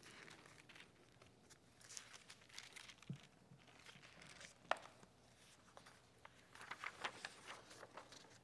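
Faint rustling and crinkling of paper pages and a loose sheet being handled close to a microphone, with scattered small clicks. There is one sharper tap a little past halfway and a short run of rustles near the end.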